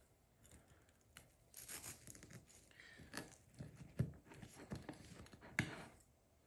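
Knife cutting through a dense, freshly baked apple cake on a plate: faint, irregular scraping and crumbling, with a few sharper clicks, the clearest about four and five and a half seconds in.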